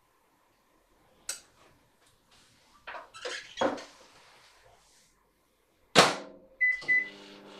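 Dish clinking and handling noises as the container is set back in the microwave, then the microwave door shut with a sharp clack about six seconds in. Two short keypad beeps follow, and the microwave oven starts running with a steady hum near the end.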